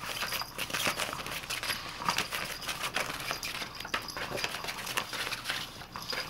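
Cat's Meow battery-powered cat toy running: its motor-driven wand rattles and scrapes under the fabric cover in a fast, continuous clatter of clicks.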